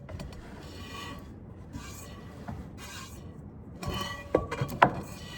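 Squirts of goat milk from hand milking hitting a metal pot, a short hiss with a faint metallic ring about once a second. A couple of sharp clinks against the pot near the end, the second the loudest.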